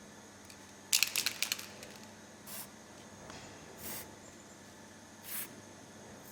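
A quick, loud rattle of clicks about a second in, then three short bursts of aerosol spray from a can of mold-maintenance product being sprayed onto mold parts.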